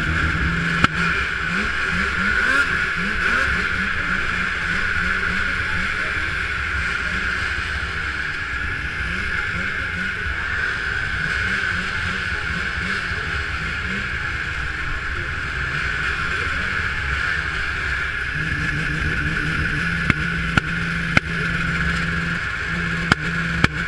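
A row of snowcross racing snowmobiles idling together on the start line, their engines wavering in pitch as throttles are blipped now and then. A few sharp clicks come near the end.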